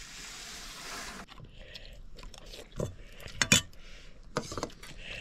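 Eating fried rice from a plate: a hiss for about the first second, then a few sharp clinks and knocks of a plate or spoon, the loudest about halfway through.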